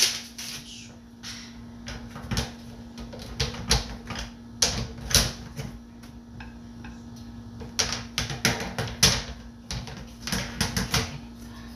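Metal wire dish-drying rack clattering and clicking irregularly as its parts are handled and set down on the counter, the loudest clatters about five and nine seconds in. A steady low hum runs underneath.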